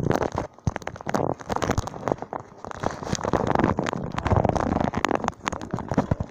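Muffled rubbing, rustling and knocking on a phone's microphone as the phone is handled and moved about, with many sharp clicks.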